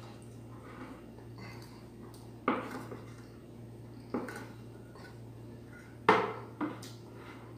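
Metal tin cans knocking against a tabletop as they are picked up and set down: four sharp knocks, the loudest about six seconds in, over a steady low hum.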